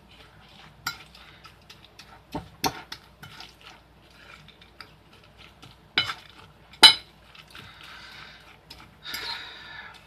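Metal fork stirring and scraping rolled oats on a ceramic plate, with irregular sharp clinks of the tines against the plate, the loudest two about six and seven seconds in.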